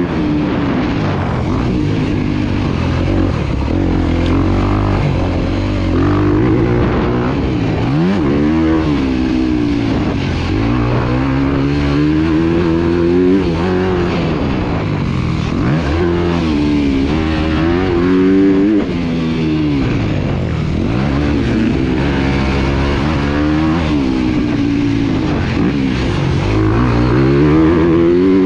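Motocross bike engine heard from on board, revving up and falling back again and again as the throttle is opened and closed around the track.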